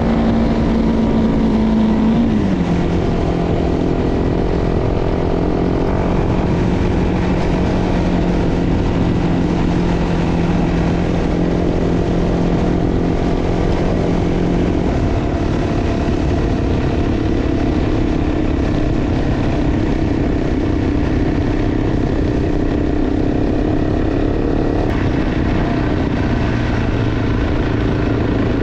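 Honda CRF300 Rally's single-cylinder engine running under way on a dirt track, over a steady rush of noise. The engine pitch drops about two seconds in and holds steady for a while, then runs higher and creeps up in the second half, shifting again near the end.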